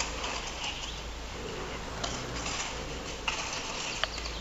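Rustling and handling noise as artificial flowers and a wicker basket are moved about, with a couple of light clicks in the second half.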